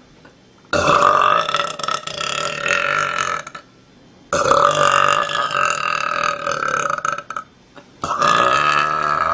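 A young woman belching three long burps one after another, each lasting about three seconds, with short pauses between them.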